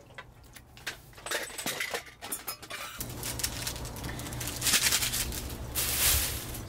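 Light clinks and knocks of metal cookware and utensils on a camp table, followed about four seconds in by a stretch of crinkling from a small packet being handled and torn open.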